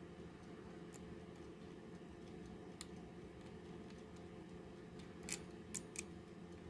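Faint, irregular small clicks from a 1940s mechanical alarm clock being handled as it is coaxed back into running, with three sharper clicks near the end. A steady low hum sits underneath.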